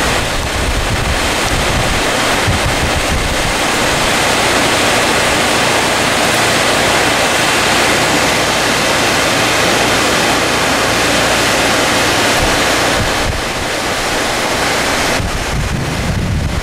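Steady rush of heavy rain and floodwater, with wind buffeting the microphone.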